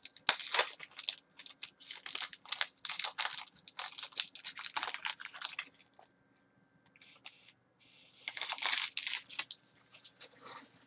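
Trading card pack wrapper being torn open and crinkled by hand: a run of rustling, crackling bursts for about six seconds, a pause, then a shorter burst near the end as the cards come out.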